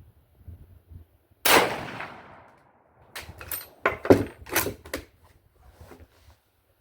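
A single rifle shot from a Siamese Type 46/66 Mauser bolt-action rifle firing a mild 8x52mm rimmed handload, about a second and a half in, its report ringing away over a second or so. About three seconds in comes a quick run of sharp clacks, the bolt being worked to eject the case and chamber the next round.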